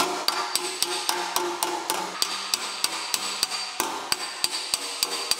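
Body hammer tapping lightly and quickly on a sheet-metal motorcycle fender backed by a dolly, about four to five taps a second, each with a faint metallic ring. This is gentle planishing, glancing the hammer to smooth out small dents without stretching the metal.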